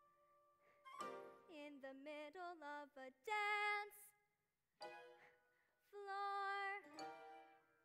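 A young girl singing a musical-theatre solo over soft instrumental accompaniment, in two phrases that each end on a held note.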